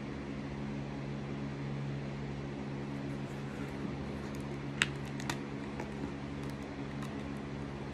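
Steady low mechanical hum, with a sharp click about five seconds in and a softer one just after, as the painted rock and acrylic markers are handled on a plastic cutting mat, then a few faint ticks.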